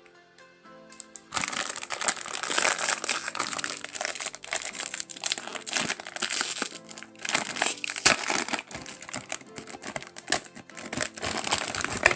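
A plastic-foil blind-bag sachet crinkles loudly and continuously as it is handled and pulled open by hand, starting about a second in. Soft background music plays underneath.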